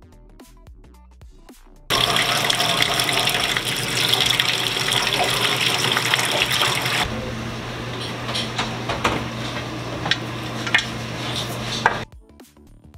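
Tap water pouring from a kitchen faucet into a galvanized metal wash-tub sink and splashing. It starts suddenly about two seconds in, softens a little halfway through with a few clinks, and stops abruptly near the end.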